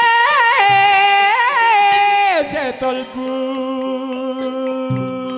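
Live Javanese traditional music: a singer holds long, ornamented notes that waver and slide, giving way about two and a half seconds in to a lower steady note, with a couple of low drum beats.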